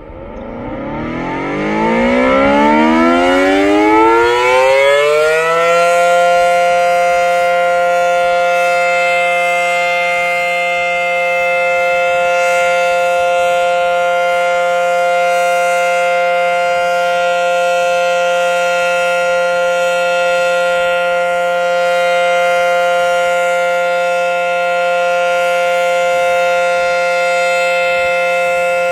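Federal Signal SD-10 rotating outdoor warning siren spinning up, its pitch climbing for about six seconds, then holding a loud, steady tone: the Alert signal.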